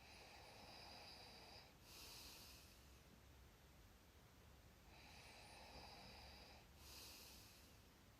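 A sleeping person breathing slowly with faint snoring. There are two breaths about five seconds apart, each a longer draw followed by a short, airy release.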